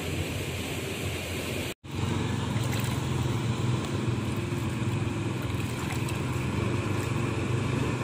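Steady outdoor street noise with a low engine-like rumble, broken once by a split-second dropout to silence about two seconds in.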